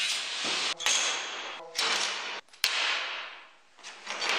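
Metal-cutting chop saw with a carbide-tipped blade cutting steel flat bar, broken by a few sharp clicks. About two thirds in, the saw noise dies away, and it starts up again near the end.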